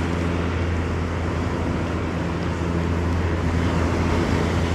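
Surf washing on the beach and wind, under a steady low hum.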